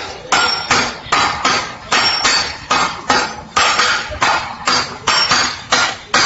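Hand hammer and sledgehammer striking metal on an anvil by turns, as in blacksmith forging. The strikes come in a steady, even rhythm of about three a second, each with a short metallic ring.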